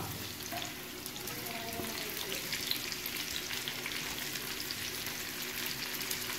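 Hot oil sizzling and crackling steadily in a frying pan as sliced onions are added to frying curry leaves, ginger, garlic and green chillies.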